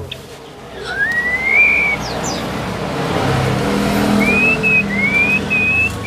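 Clear, smooth rising whistles: one about a second in, then a short run of three or four more from about four seconds. Under them runs a steady background rumble with a low hum that swells in the middle.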